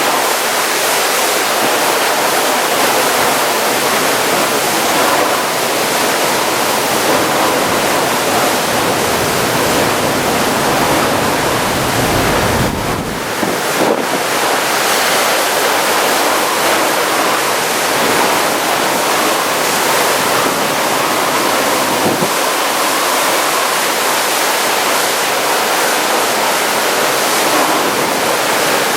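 Typhoon rain and wind: a loud, steady rush of heavy rain driven by strong wind. About twelve seconds in, wind buffets the microphone for a second or two with a low rumble.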